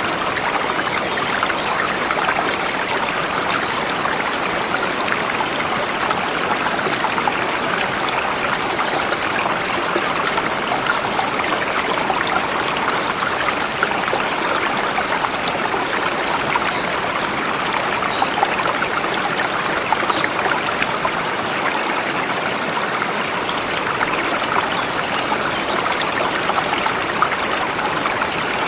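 Forest river flowing over rocks: steady rushing water with a bright babbling texture.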